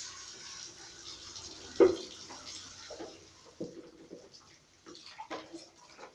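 Water splashing and running as fan parts are washed by hand, with a sharp knock about two seconds in and a few lighter knocks after it.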